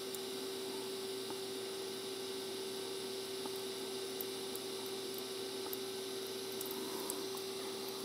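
DC TIG welding arc on a titanium-to-stainless-steel butt joint: a steady hiss with a constant hum, and a few faint crackles near the end.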